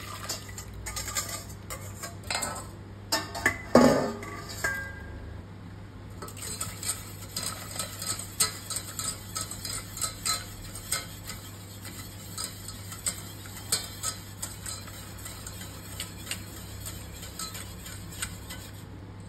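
Wire balloon whisk stirring vanilla custard sauce in a stainless steel saucepan, its wires clicking and scraping against the pot in a quick, steady rhythm as the sauce cooks and thickens. A loud clatter comes about four seconds in, just after the mixture is poured back into the pot.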